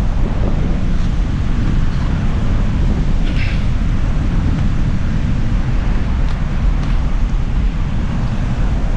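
Wind buffeting the microphone in a steady low rumble, with beach surf beneath it and one short squeak or scrape about three and a half seconds in.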